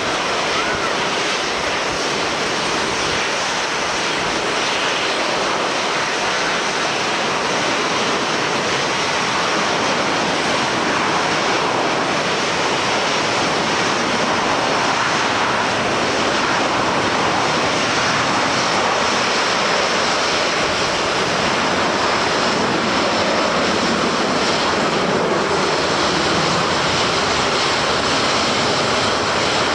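Airliner jet engines running, a steady noise mixed with the hiss of heavy rain, swelling a little in the low range in the last third.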